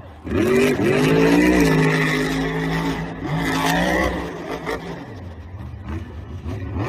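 Monster truck engine sound effect: the engine revs up with a rising pitch, runs steadily, revs again briefly, then eases off in the second half.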